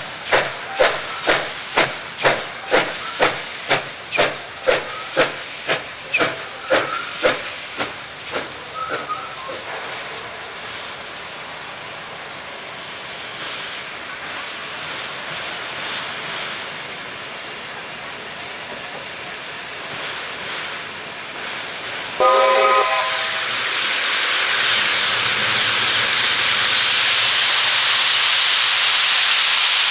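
NSWGR AD60 class Beyer-Garratt steam locomotive 6029 approaching with a train: sharp exhaust beats about two a second that fade away after about ten seconds as it eases off, leaving a steady hiss. About 22 seconds in it gives a short whistle toot, then a loud rush of steam hiss that grows louder as it draws near.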